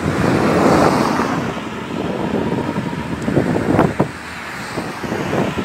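Wind buffeting a phone's microphone while cycling, a loud rough rush that swells and eases.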